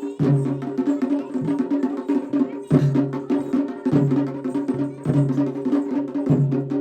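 Instrumental passage of Kumaoni folk music: quick, dense percussion strokes over sustained pitched notes, with a low note re-entering about once a second.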